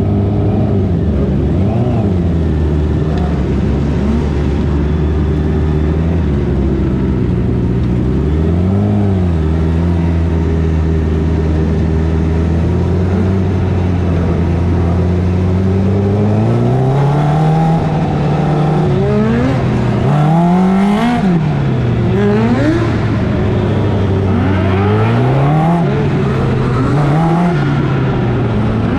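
Engine of a small open-wheel dirt race car, heard from a camera on the car. It runs at a steady note, rises and falls once about a third of the way in, then from about halfway revs up and down over and over as the car laps the track.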